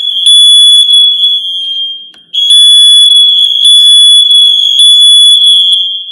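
Several FireAngel Wi-Safe 2 wirelessly linked alarms sounding together, set off across the network by one unit's test: a very loud, piercing high alarm tone with other alarm beeps overlapping it on and off. It drops out briefly about two seconds in, then comes straight back.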